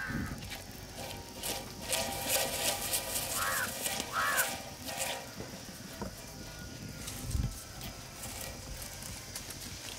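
Halved onion rubbed over a wet new iron tawa, scraping in repeated strokes, done to scrub rust off the griddle's surface. Two short animal calls come in the middle, and there is a low thump later on.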